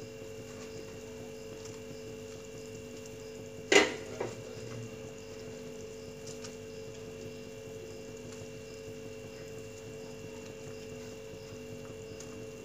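A steady hum runs under faint kitchen handling as fried kofta balls are placed by hand into simmering gravy in a steel kadhai. About four seconds in comes one sharp knock, loud against the rest, then a smaller one, with a few faint clicks later.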